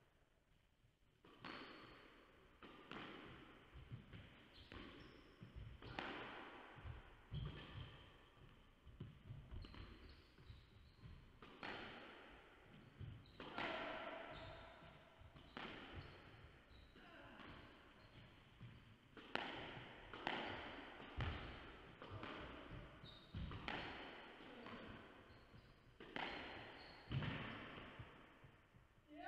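Squash ball struck by rackets and smacking off the court walls during a rally, each hit echoing around the court, at irregular intervals of about one to two seconds.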